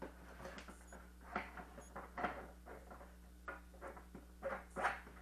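Irregular light clicks, taps and rustles of hands handling a plastic antenna housing and its plastic packaging tray, with the loudest knocks near the end.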